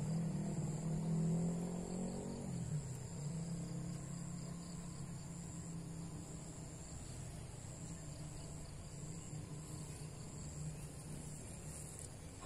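Crickets chirring steadily in a high, thin, unbroken tone, with a low steady hum under it that is loudest for the first two seconds and then fades.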